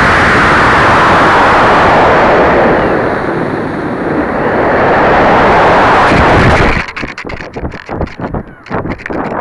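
A model rocket in flight, heard through its own onboard camera's microphone: a loud, continuous rush of rocket noise and airflow that eases briefly in the middle, then cuts off suddenly about seven seconds in. After that come uneven gusts of wind buffeting the microphone as the rocket tumbles back down.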